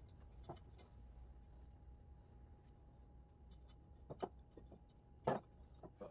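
Wire hangers clinking and tapping against a small stainless steel pot as it is handled, with a louder metallic knock a little after five seconds in.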